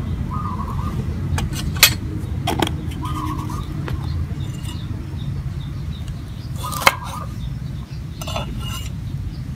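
Metal spoon and utensils clinking against a ceramic bowl and glass jar as ground pepper is spooned out: a few sharp clinks, the loudest about seven seconds in, over a steady low rumble.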